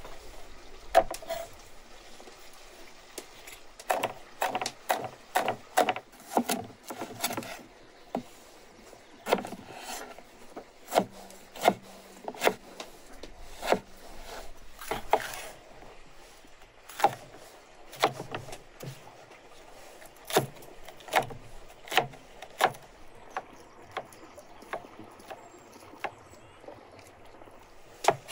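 Broad-bladed kitchen knife chopping green chili peppers and tomatoes on a wooden cutting board: sharp knocks of the blade on the wood, in quick runs of several a second, then single strokes about a second apart.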